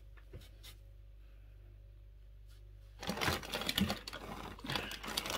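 Packaging being handled, with a few faint clicks and then, about three seconds in, a dense irregular crackling and rustling like plastic wrap or foam being crumpled.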